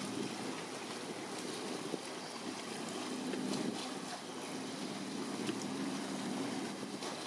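Wind buffeting the microphone over a steady low rumble.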